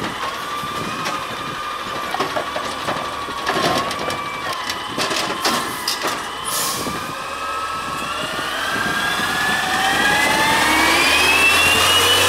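Automated side-loader garbage truck working: a steady hydraulic whine with clunks and knocks as the arm shakes out a yard-waste cart and sets it down. The truck then pulls away and comes past with a whine rising in pitch and growing louder as it speeds up.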